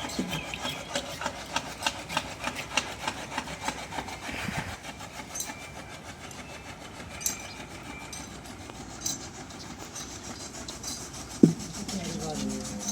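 Buffalo being hand-milked: quick rhythmic squirts of milk hitting the vessel, several a second, thinning after about four seconds, with a single sharp knock near the end.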